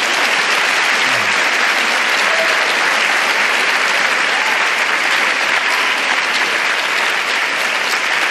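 Audience applauding, loud and steady clapping.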